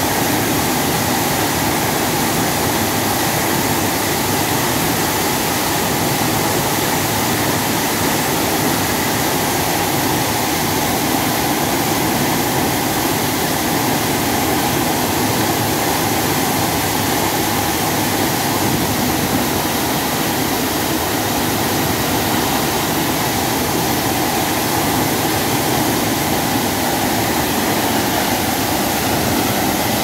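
Kutralam waterfall in spate, a torrent of water crashing down onto the rocks and bathing-area railings. It makes a loud, steady, unbroken rushing.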